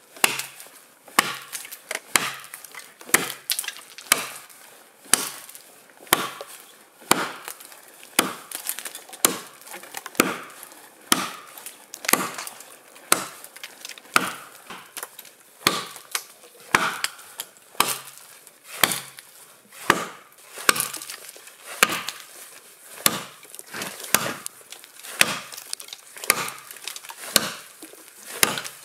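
Axe chopping into a pine log, with steady sharp strikes about once a second and lighter blows between them.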